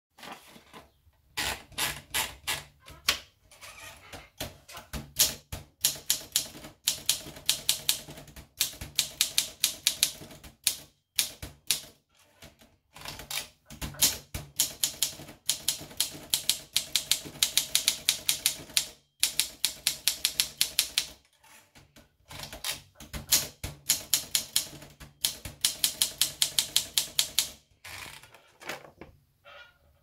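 Olympia SM-series manual portable typewriter being typed on: quick runs of sharp key strikes clacking, broken by short pauses.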